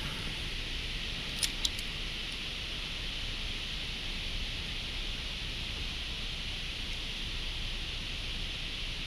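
Steady outdoor hiss with two sharp clicks close together about a second and a half in, from a spinning reel being handled while a lure is worked.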